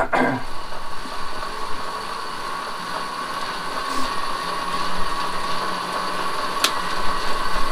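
Pedal-driven bike generator spinning with a steady whirr and a high whine as electrical load is dialled onto it through a pulse width modulator. A single short click about two-thirds of the way through.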